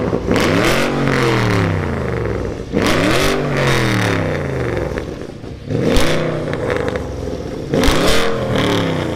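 Porsche Panamera Turbo's 4.8-litre twin-turbo V8 revved four times at a standstill, each rev climbing and falling back to idle. The exhaust is straight-through: downpipes fitted, resonators removed and mufflers converted to straight-through.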